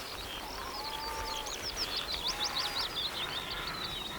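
Dawn chorus of several songbirds singing at once on open upland: a dense run of quick, high, sweeping chirps that is busiest in the middle, with a lower held whistle about a second in.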